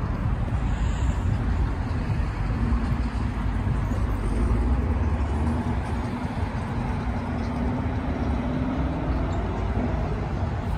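Vehicle engines and road noise, a steady rumble with one engine's note rising slowly over several seconds as it accelerates.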